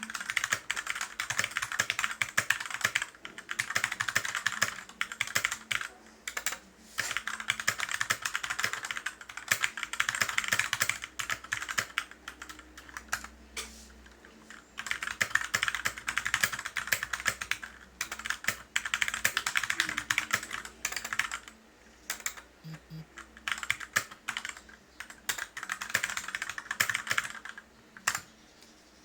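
Typing on a stock Rumi61 60% mechanical keyboard with Gateron Red linear switches: runs of rapid keystrokes lasting a second or few, broken by short pauses with a few single key presses.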